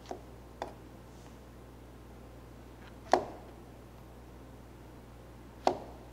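Kitchen knife striking a plastic cutting board as it cuts the stems off button mushrooms: four sharp knocks, two close together at the start, the loudest about three seconds in and another near the end.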